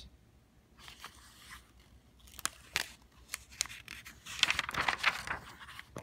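Paper pages of a picture book rustling and crinkling as the book is handled and a page is turned, with scattered sharp clicks from about two seconds in and a thicker rustle near the end.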